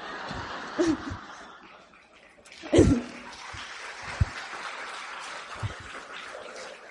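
Audience laughing and clapping in a room, with a louder burst of reaction about three seconds in.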